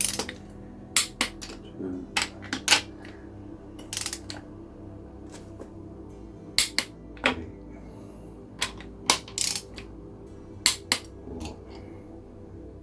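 Torque wrench clicking and ratcheting on the cylinder head bolts of a Reliant engine as they are tightened to torque, in short clusters of two or three sharp metallic clicks every second or two.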